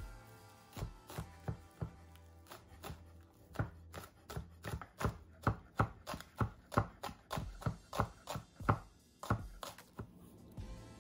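Santoku knife chopping green onions on a wooden cutting board: a run of sharp knocks, a few scattered ones at first, then quick and regular at about three a second, stopping abruptly under two seconds before the end.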